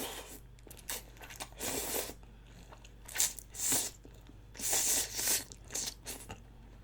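Close-miked chewing and crunching bites from a meal of soupy chicken feet and glass noodles, in irregular wet bursts with short pauses between them.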